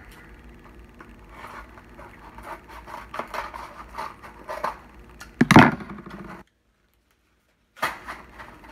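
Scissors snipping through a cardboard frozen-meal box, with crinkling and rustling as the box is handled, and one louder crunch of cardboard about five and a half seconds in. The sound cuts out completely for about a second near the end.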